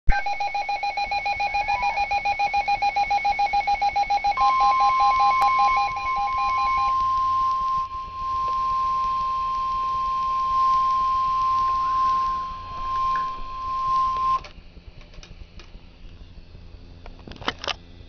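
Midland NOAA weather alert radio sounding an emergency alert: rapid pulsing beeps for the first several seconds, overlapped about four seconds in by the steady 1050 Hz NOAA Weather Radio warning alarm tone, which holds for about ten seconds and then cuts off. This is the tone that signals a warning-level alert, here a severe thunderstorm warning, with a few soft clicks near the end.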